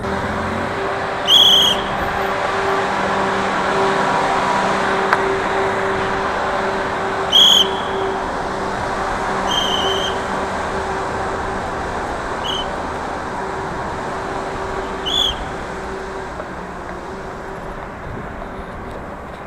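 Road traffic noise with a vehicle engine's steady hum, fading in the last few seconds. Five short high-pitched chirps stand out above it.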